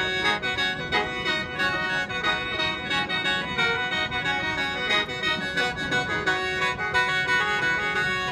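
Lao khaen, a bamboo free-reed mouth organ, played solo: a stepping melody over steady held drone notes, with an organ-like reedy tone.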